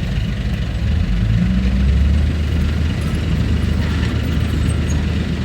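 Komatsu D31PX bulldozer's diesel engine running steadily, a low, even drone.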